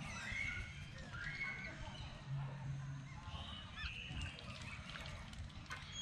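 A flock of lesser whistling ducks calling: a scatter of short, high whistles, several rising and falling, some overlapping. A brief low hum sounds underneath about two and a half seconds in.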